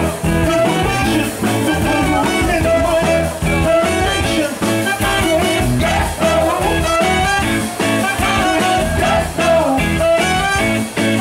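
A live band playing, with saxophone, electric bass and drums and a singer on a microphone.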